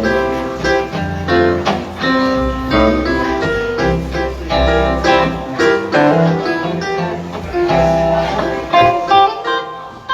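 Live band playing an instrumental passage: plucked guitar notes over a sustained bass line, easing off near the end.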